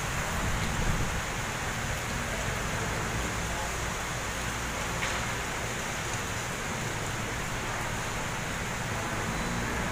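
Heavy typhoon rain falling in a steady hiss, with gusting wind making an uneven low rumble underneath.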